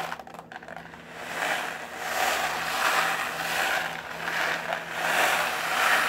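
Dried adlai (Job's tears) grains rolling and pattering inside a shaker made of two thin paper plates stapled together, tilted slowly back and forth to imitate rainfall. The hiss starts faint and then swells and fades in waves as the grains slide from side to side.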